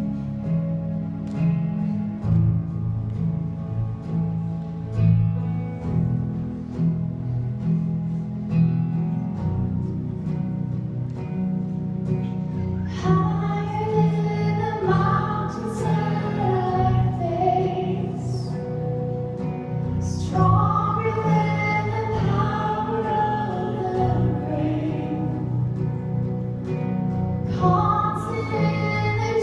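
A song: an instrumental opening over steady bass notes, then singing comes in about halfway through.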